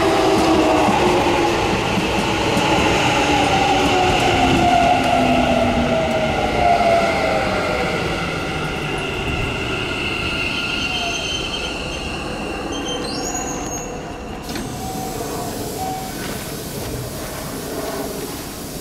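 Keikyu 1000 series electric train's IGBT-VVVF inverter and traction motors whining under braking. Several tones fall steadily in pitch as the train slows, with a brief rising high chirp about two-thirds of the way through, and the running noise fades as it nears a stop.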